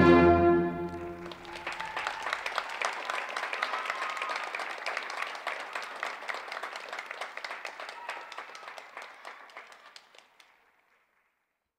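Orchestral music ends on a held final chord, then an audience applauds, the clapping slowly fading away near the end.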